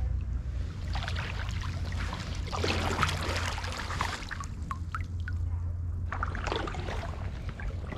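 Kayak paddle strokes in calm water, about three of them, each a splash with water trickling and dripping off the blade, over a steady low rumble.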